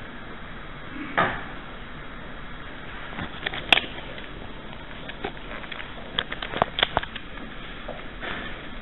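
Scattered knocks and clicks over a steady background hiss: a knock about a second in, the loudest and sharpest click a little before halfway, and a cluster of short clicks near the end.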